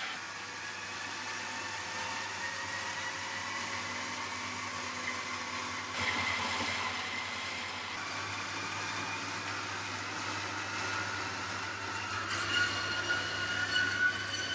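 Treadmill motor and belt running under a Lego Technic hovercraft model: a steady hum with whining tones that slowly rise in pitch as the belt speeds up. A few light clicks near the end.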